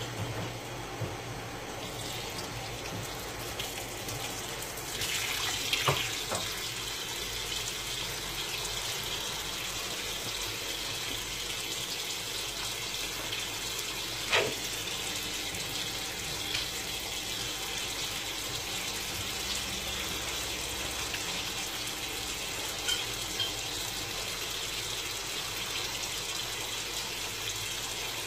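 Kitchen tap running steadily into a sink while a cup is washed by hand, with a few short knocks, the clearest about 6 and 14 seconds in.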